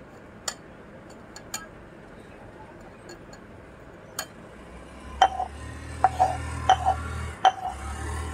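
Metal spoon beating eggs in a stainless steel bowl, with faint scattered clinks at first. In the second half come about half a dozen sharp, louder clinks that ring briefly, over a low hum.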